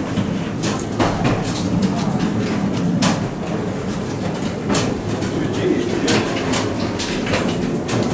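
Footsteps and scuffs of passengers walking along an airport jet bridge, over a steady low rumble, with faint chatter in the background.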